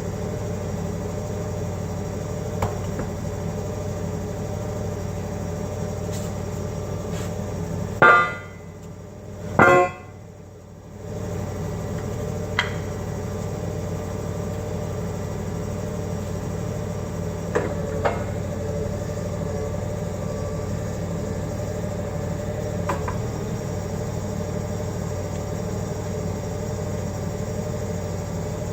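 Forklift engine running steadily. Two loud, ringing metal clangs come about eight and ten seconds in, as the heavy steel fork is lowered onto a block, bumps and comes off the carriage. A few lighter metal clicks follow.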